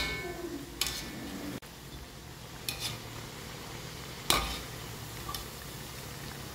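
Slabs of tempeh deep-frying in a wok of oil, a steady sizzle, with several sharp metal clinks from a wire skimmer and steel pans.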